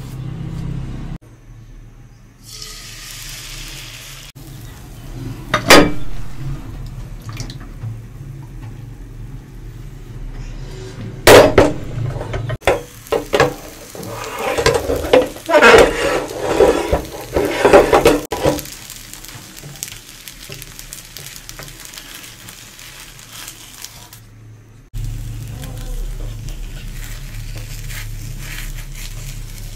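Pan-and-utensil clatter while cooking: a frying pan knocked against the stove and bowl, with two sharp knocks and then a run of rapid clattering and scraping strokes in the middle, over a low steady hum.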